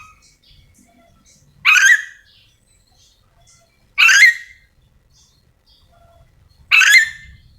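Ornate lorikeet (nuri dora) calling: three loud, harsh calls, each about half a second long, spaced about two and a half seconds apart.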